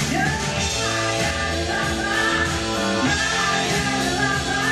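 A song playing, with a singing voice over a steady musical backing.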